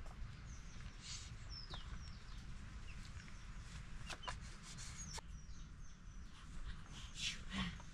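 Birds chirping: high, short calls that slide downward, repeated about once a second, over a steady low outdoor rumble. A few sharp clicks or taps cut in, the loudest near the end.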